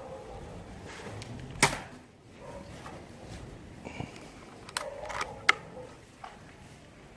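A single moderated air rifle shot about one and a half seconds in, followed a few seconds later by several light mechanical clicks.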